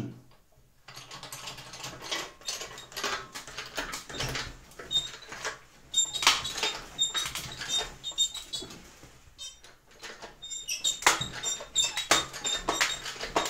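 Hydraulic bottle jack of a homemade log splitter being pumped by hand while it presses a thick log onto the splitting wedge: an irregular run of clicks and creaks, with short high squeaks in two spells.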